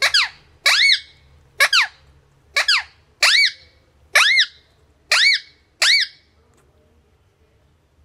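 Indian ringneck parakeet giving a run of eight short, sharp squawks, each rising then falling in pitch, a little under a second apart. The calls stop about six seconds in.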